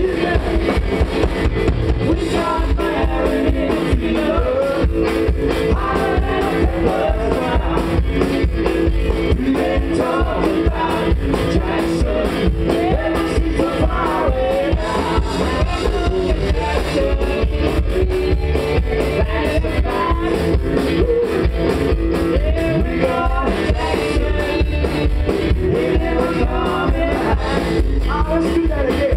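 Live country-rock band playing: a woman singing lead over upright double bass, a drum kit and electric guitar, with a steady beat.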